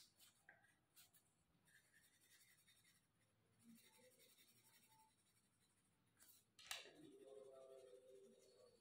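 Faint scratching of a colored pencil shading on paper, with small ticks as the lead strokes. Near the end a louder noise comes in with a falling tone and then a faint steady hum that lasts a couple of seconds.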